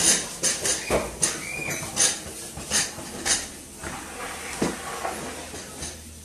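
Dishes and cutlery clinking and clattering as they are cleared and stacked: a quick run of sharp clinks over the first few seconds, then fewer and more spaced.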